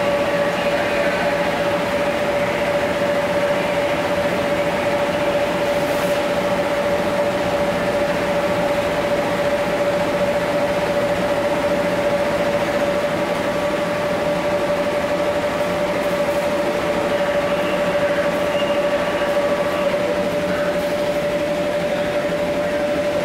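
Electric inflatable blowers running: a steady rushing drone with a constant hum.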